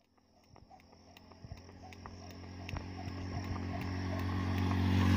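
A motorcycle engine approaching along the road, its steady drone growing louder until it passes close near the end. Under it, a skipping rope taps the ground in a regular rhythm.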